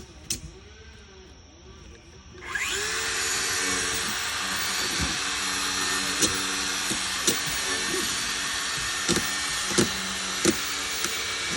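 A few light knocks, then about two and a half seconds in a power tool starts and runs steadily at one constant speed for the rest of the time. A few sharp clicks and knocks come over it.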